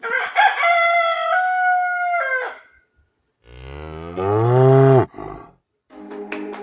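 A high, held animal call lasting about two and a half seconds with a drop in pitch at its end. About a second later comes a cow's deep moo that rises and then falls off. Near the end, sharp clicks and a few steady tones begin.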